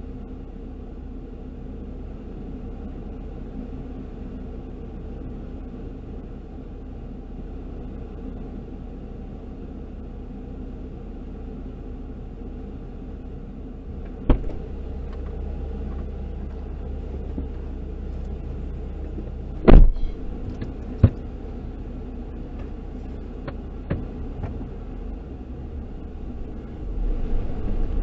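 Steady low rumble of a stationary vehicle, broken by a few sharp clunks, the loudest about two-thirds of the way through. Near the end a louder, uneven low rumbling comes in as the vehicle starts to move.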